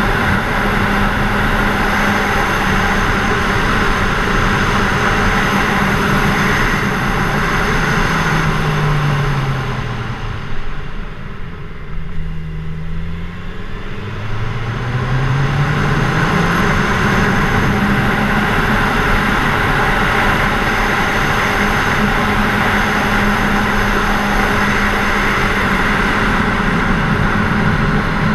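Kawasaki Z1000SX's inline-four engine running at steady cruising speed under a rush of wind noise. About eight seconds in the engine note falls and everything goes quieter for a few seconds as the bike slows, then the note climbs again as it accelerates back up to a steady cruise.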